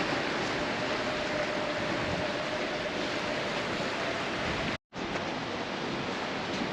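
Steady rushing noise of wind and sea on a moving ship, cut off completely for a moment a little under five seconds in.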